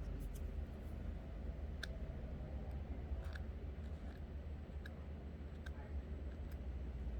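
Light, sharp clicks at irregular intervals, about one a second, from small phone parts and tools being handled during the repair, over a low steady hum.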